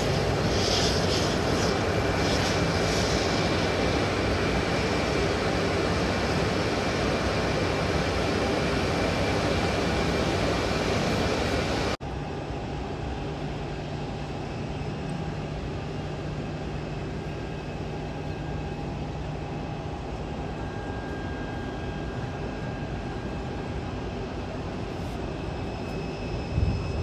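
Airbus Beluga XL's twin Rolls-Royce Trent 700 turbofans running with a steady roar. About halfway through the sound drops abruptly to a quieter, steady engine hum with faint whining tones.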